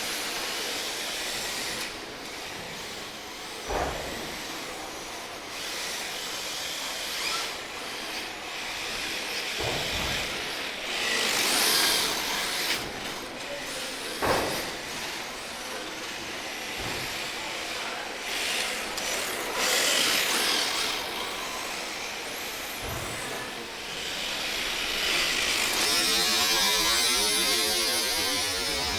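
Sakura D4 electric RC drift car running on the track, its motor and tyre scrub on the surface making a hiss that swells several times as it speeds up and slides, with a few short knocks.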